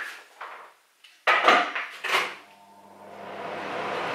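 A frying pan clattering twice against a gas hob, then a steady rushing noise with a low hum that grows louder.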